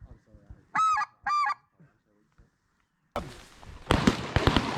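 Two short, high goose yelps of the specklebelly (greater white-fronted goose) kind about a second in. About three seconds in they give way to a sudden loud rush of noise and a run of sharp cracks: shotgun fire as the hunters shoot at the incoming single.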